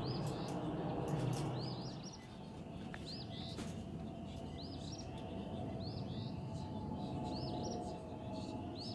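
A songbird repeats short high chirps, singly or in quick pairs, every second or two. Beneath them is the low rumble of a jet airliner passing overhead, loudest in the first two seconds and then fading.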